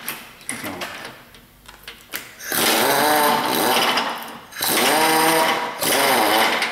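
A power wrench runs in three bursts, starting about two and a half seconds in. The first is nearly two seconds long and the later two are shorter, each a whine that rises and then falls in pitch, as it spins out the long subframe bolts. A few light metal clanks come before the first burst.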